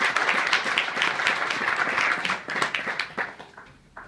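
Audience applauding, many hands clapping at once. The applause thins out and dies away about three seconds in, with a last lone clap near the end.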